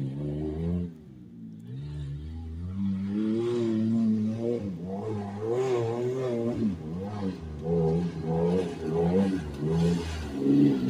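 Full-size SUV's engine revving hard through mud, its pitch climbing and dropping again and again, about once a second near the end. It grows louder as the vehicle comes closer.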